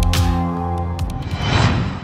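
Electronic intro jingle: a few sharp drum hits over held bass notes, then a swelling whoosh near the end as it fades away.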